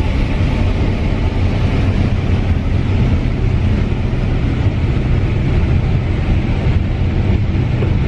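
Claas Lexion combine running steadily while picking corn, heard from inside the cab: an even low drone of engine and machinery with a constant rushing noise over it.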